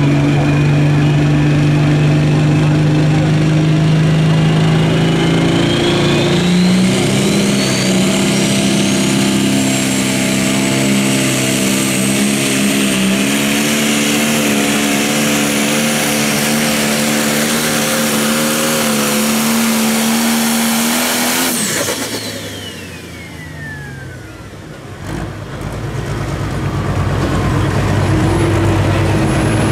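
Turbocharged diesel engine of a John Deere Pro Stock pulling tractor running flat out through a pull, its turbocharger whistle climbing steadily in pitch over the first several seconds. About two-thirds of the way in, the engine cuts off suddenly at the end of the run, and the turbo whistle falls away as it spools down. Near the end a lower engine sound builds up again.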